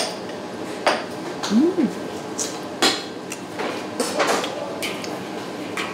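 Tableware clicking and knocking while eating: chopsticks and dishes tapping against bowls and plates in a string of sharp clicks about a second apart, with a few short scrapes and one brief hum of a voice.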